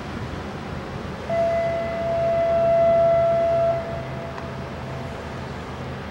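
Cruise ship Thomson Majesty's horn giving one long blast as a farewell salute on leaving port: a steady high note with fainter higher tones above it. It starts abruptly just over a second in, holds for about two and a half seconds, then trails off weaker for another second or two.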